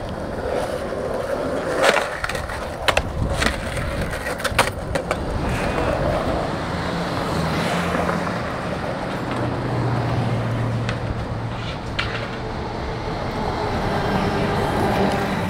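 Skateboard wheels rolling on sidewalk concrete, with sharp clacks of the board against the pavement in the first few seconds. Street traffic runs underneath, including a passing bus with a low engine hum partway through.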